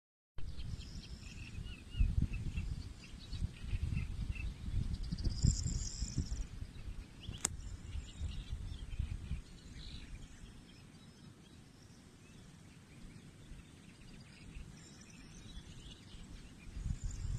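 Outdoor ambience of birds chirping over a low, uneven rumbling noise that is strongest in the first half and then eases off. A single sharp click about seven seconds in.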